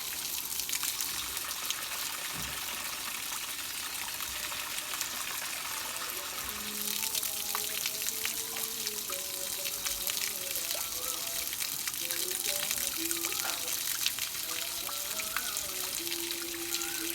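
Water running or gushing steadily with a dense, even hiss. Faint wavering pitched tones come in about seven seconds in.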